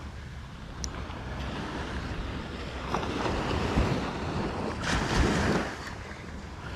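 Small waves breaking and washing up a sandy beach, with wind buffeting the microphone; a louder rushing surge about five seconds in.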